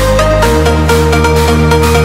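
Electronic dance music with a deep bass line and a steady beat; the bass moves to a new note about half a second in.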